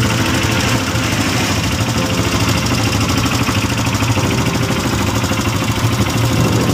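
ATV (quad bike) engine idling steadily.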